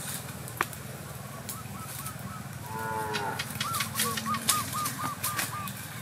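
An animal lets out one drawn-out call about halfway through, followed by a quick run of about six short, higher calls. Sharp clicks and crackles from the wood fire roasting the fish are scattered throughout.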